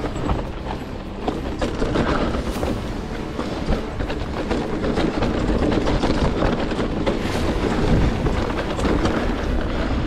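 Electric mountain bike ridden fast over rough trail: steady tyre noise on dirt and rock with many small knocks and rattles from the bike.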